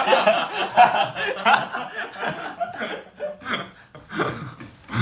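Young men laughing. The laughter is loud at first, trails off after about three seconds, then picks up again near the end.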